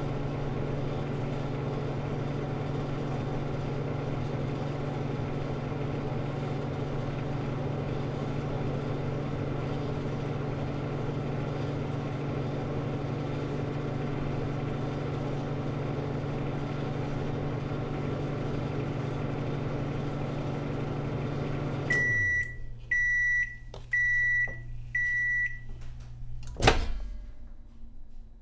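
Microwave oven running with a steady hum for about 22 seconds, then switching off as the hum winds down. It then beeps four times about a second apart to signal the end of the cycle. A single sharp click follows, the loudest sound of all.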